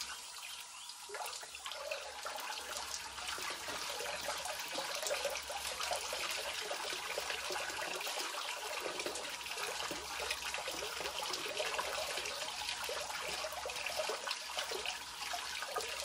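Water from an outdoor tap splashing through a bunch of fresh chives rinsed by hand, spattering into a concrete basin. The splashing grows louder about a second in and then runs steadily.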